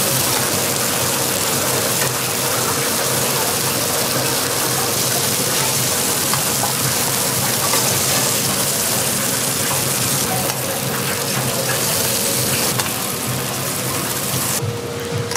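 Food frying with a steady, dense sizzle, turning abruptly duller near the end.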